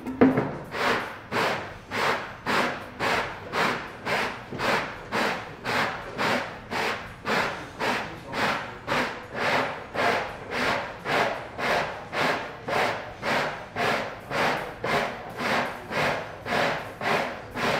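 Abrasive paper on a hand-turned 25-foot radius dish grinding across the wooden edge of an acoustic guitar's rim, rising and falling in even strokes about three every two seconds as the dish is spun, sanding the radius into the rim.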